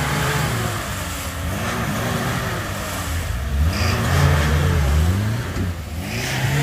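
Lada Niva's engine revved up and down repeatedly under load as the car tries to pull out of deep mud, loudest about two-thirds of the way through.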